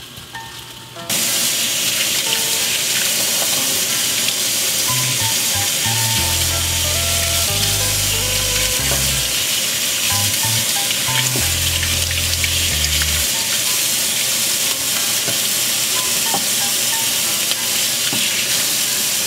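Kitchen faucet running into a stainless steel sink, the stream splashing over celery stalks being rinsed under it. A steady rush of water that starts abruptly about a second in.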